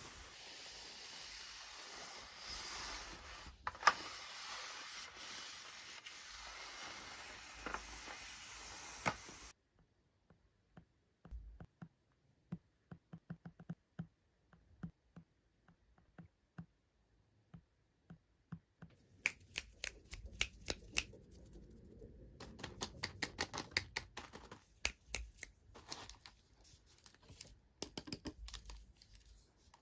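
Small plastic toy parts and packaging handled close up. A stretch of steady hiss with a few clicks stops abruptly about nine seconds in. Sparse light clicks and taps follow, then denser clicking and rustling in the last third.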